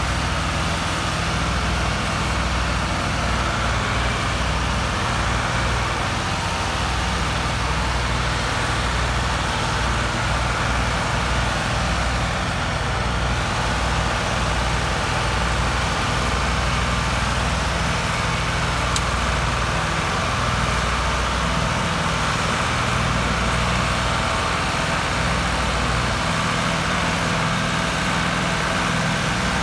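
Three-cylinder diesel engines of two Ford tractors, a 4600 and a 3610, running hard under heavy load in a steady low drone as the 4600 tows the mud-stuck 3610 and its loaded trolley by chain.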